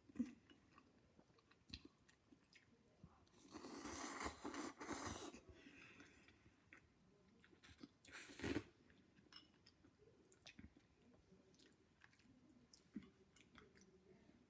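Someone eating noodles close to the microphone: two noisy slurps, a long one about four seconds in and a short one about eight seconds in, with faint chewing and small mouth clicks between.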